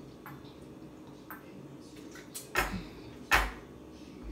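Plastic water bottle handled during a drink: a few faint clicks, then two loud, sharp crackles less than a second apart, a little past halfway through.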